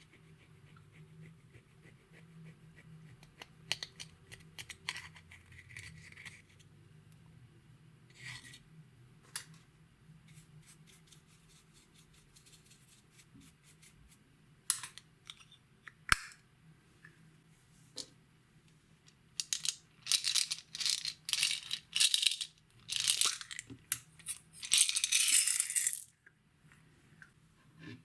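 Slime being worked by hand: sticky clicks and pops, sparse at first, then a dense run of loud crackling squishes in the last third.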